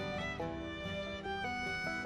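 Instrumental background music: a steady run of melodic string-instrument notes.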